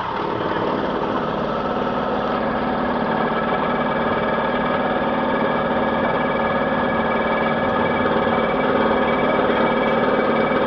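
An engine running steadily at a constant speed, slowly growing louder.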